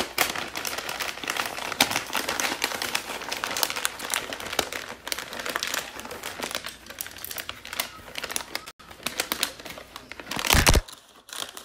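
Wrapping paper crinkling and rustling as it is folded and pressed around a small box by hand, in many quick irregular crackles. About ten and a half seconds in, a loud thump as the recording phone is knocked over.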